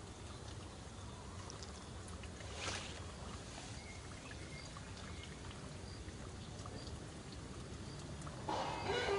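Steady rushing background noise, with a short burst of noise about two and a half seconds in. Near the end a rooster starts crowing loudly.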